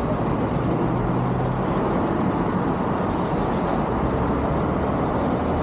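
Steady downtown street traffic noise: a continuous rumble of passing and idling cars and buses, with a low engine hum in the first couple of seconds.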